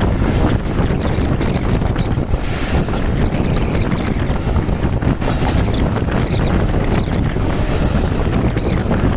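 Broad-gauge local train running along the track: a steady rumble with wind buffeting the microphone, and a few faint short high squeaks.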